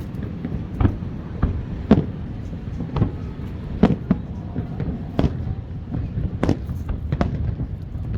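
Aerial fireworks display: shells bursting in irregular bangs, roughly one a second, over a continuous low rumble of further explosions.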